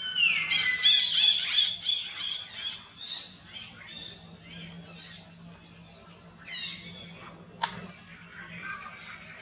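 Baby macaque crying in a rapid run of high, shrill squeals, loudest over the first three seconds, then fading to scattered weaker calls. A sharp click about three-quarters through.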